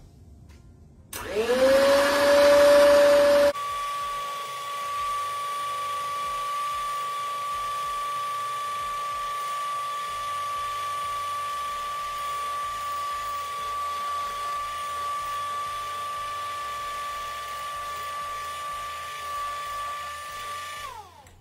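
Handheld electric mixer starting about a second in, its motor whine rising quickly and running loud for a couple of seconds, then continuing as a quieter steady whine as the beaters run through a batter of eggs and melted chocolate. Near the end the whine falls in pitch and stops as the mixer is switched off.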